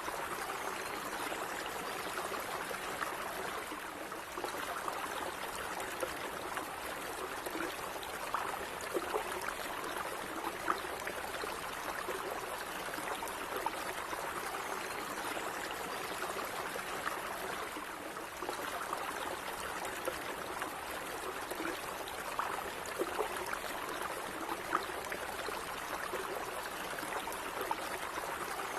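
Stream of water running steadily over rocks, a continuous bubbling and trickling with small splashes.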